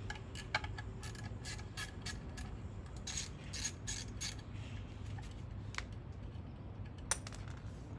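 Quarter-inch drive ratchet clicking in uneven runs as a 10 mm horn-mounting bolt is undone, with a few single clicks later on.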